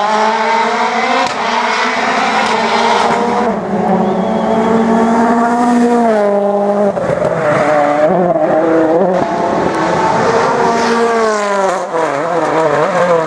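Rally car engine driven hard on a tarmac stage, its pitch climbing through the gears, dropping sharply about halfway as it slows for a corner, then wavering and climbing again as it accelerates away.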